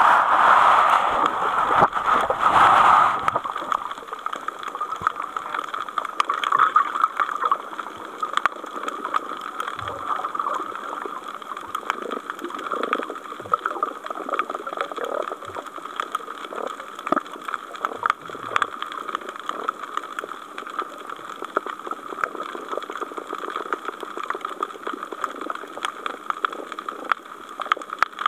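Underwater ambience recorded through a camera: a steady hiss with many scattered crackling clicks, and a louder watery rush in the first three seconds as the camera is moved.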